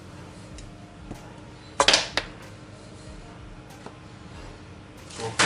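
Plastic squeeze bottle of liquid butter being squeezed over a frying pan, with one short spluttering squirt about two seconds in as air spurts from the nozzle of a nearly empty bottle, then a click. A faint steady hum runs underneath.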